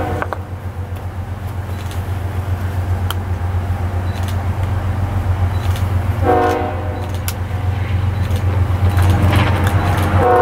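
Lead locomotive's air horn sounding for the grade crossing: a blast cutting off just after the start, a shorter one about six seconds in, and another beginning at the very end. Under it, the steady low rumble of the approaching diesel locomotives, slowly growing louder.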